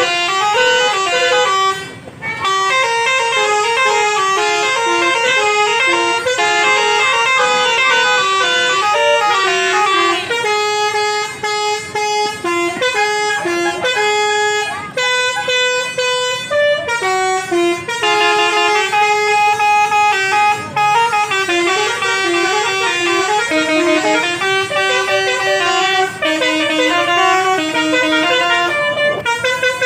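Indonesian bus basuri (musical air horn) playing a melody: loud sustained horn notes that step up and down in pitch, one after another, with a brief gap about two seconds in.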